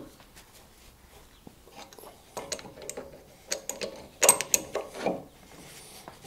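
Ratchet wrench clicking in short irregular runs, with clinks of metal tools, as bolts are fitted on the tractor's engine; the loudest run comes about four seconds in.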